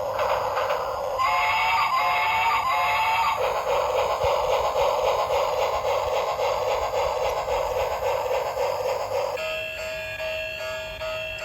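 Battery-powered toy train running with a steady rattle, its built-in electronic sound chip warbling three times about a second in and then playing a beeping electronic tune near the end.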